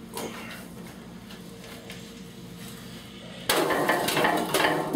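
Metal fire pot of a coal forge being set down into the hole cut in the sheet-metal forge table, scraping and clanking against the edges of the hole. The clanking starts about three and a half seconds in and ends with one sharp clank.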